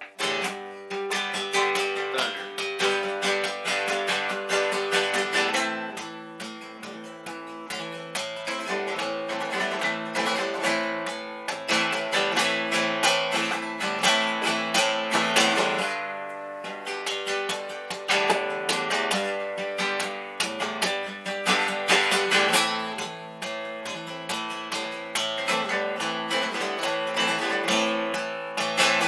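Solo acoustic guitar playing an instrumental passage, fast strumming and picked notes with no singing. It eases off briefly about six seconds in and again about sixteen seconds in before picking back up.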